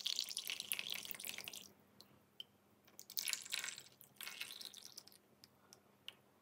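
A thin stream of coffee trickling through a small mesh tea strainer and splashing into tiny stainless-steel cups. It pours in three spells with a pause in the first half, then a few faint clicks near the end.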